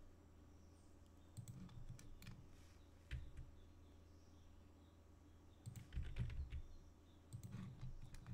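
Faint scattered clicks and taps from a computer keyboard and mouse, in several short clusters, over a low steady hum.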